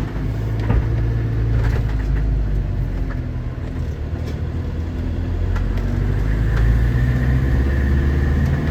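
Motorhome engine running and road noise while driving, heard from inside the cab: a steady low hum with a few light clicks and knocks.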